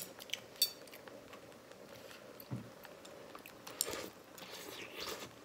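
Quiet eating sounds: chewing, a few light clicks of metal utensils in the first second, and a soft sip of hotpot soup from a spoon about four seconds in.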